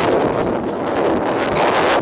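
Wind buffeting the microphone over the noise of a passenger train running, heard from an open coach door or window, with a sharper hiss of wind near the end.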